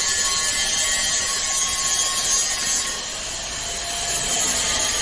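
Steady running noise of a wire-bending machine's hydraulic power unit and cooling fans: an even hiss with faint steady tones, dipping in level for about a second past the middle.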